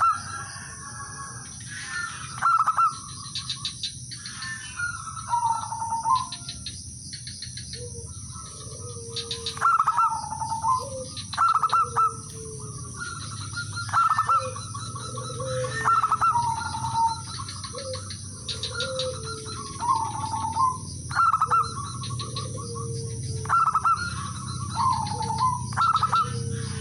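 Male zebra dove giving its territorial call to rivals: phrases of rapid staccato coos every second or two, each ending in a short dipping note. From about eight seconds in, lower coos join between the phrases.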